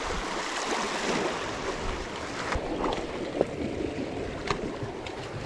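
Steady wash of wind and water noise, with a few faint clicks and knocks.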